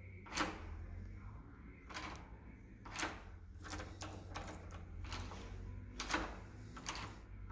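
Key working in a Dorex FH series commercial lever lockset: a series of light, scattered clicks and clacks as the key turns the cylinder and the latch moves.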